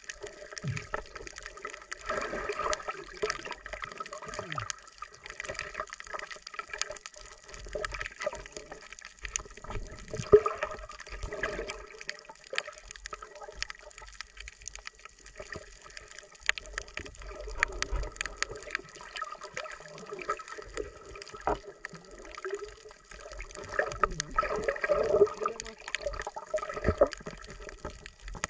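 Underwater sound picked up by a camera submerged over a coral reef: muffled gurgling water with many scattered sharp clicks and crackles, swelling louder a few times, around two, ten and twenty-five seconds in.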